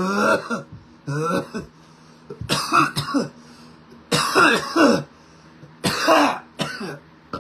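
A man coughing in a fit of about six coughs, some drawn out and voiced, after inhaling a hot dab of cannabis concentrate.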